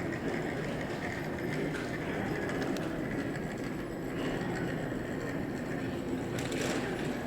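Steady low rumble and hum of an airport terminal interior, with a brief hiss near the end.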